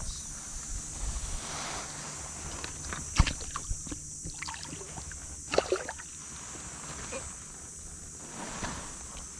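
A small tarpon splashing in shallow water as it is brought to hand at the bank: a few sharp splashes, the loudest about three seconds in and another near six seconds, over a steady high insect buzz.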